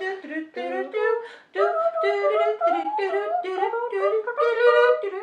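Two women's voices singing a quick wordless tune in short notes, imitating flutes as they mock-play burdock roots held to their lips.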